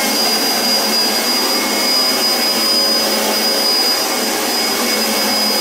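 New vacuum cleaner running steadily at full power: a high, steady whine over a loud rush of air.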